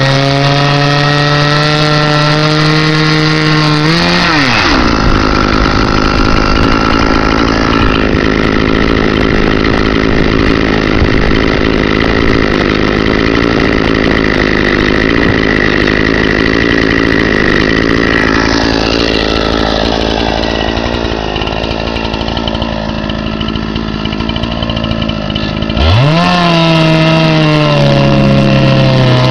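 Chainsaw on a chainsaw mill held at full throttle: it runs at a high steady pitch, then about four seconds in the note drops as the bar bites into the log and for some twenty seconds it runs under load ripping a board, a dense rough sawing noise. Near the end the engine note sweeps back up as the chain clears the cut and revs freely.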